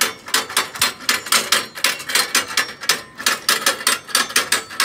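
The hand wheel of a steel Somerset Grill Co asado grill being turned, making a rapid, even metallic clicking of about six clicks a second while the fire basket drops hot embers into the bed below.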